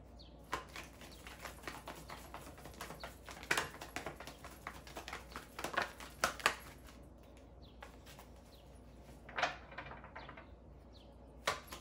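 Tarot deck being shuffled by hand: a rapid stream of soft card flicks and slaps with a few louder snaps, thinning out for a moment past the middle.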